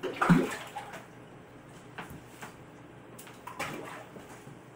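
Peacock bass splashing at the aquarium's water surface as they strike at shrimp: a loud splash right at the start, a few smaller ones, and another larger splash about three and a half seconds in.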